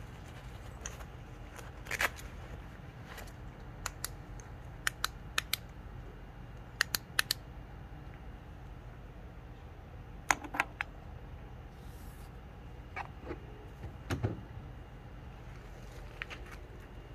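Irregular sharp clicks and ticks, some single and some in quick clusters of two or three, over a steady low hum.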